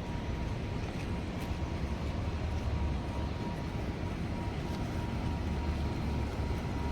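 Steady low rumble of a car in motion, road and engine noise running evenly, with a faint steady whine.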